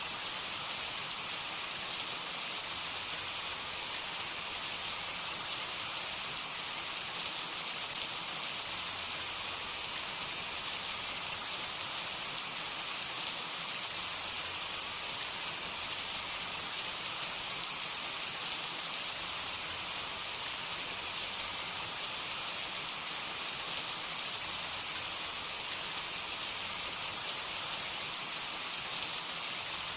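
Filled pastry snacks deep-frying in hot oil: a steady sizzle with small scattered crackles.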